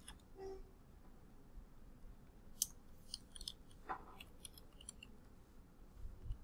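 Faint computer keyboard keystrokes: a handful of scattered, irregular key clicks while code is typed.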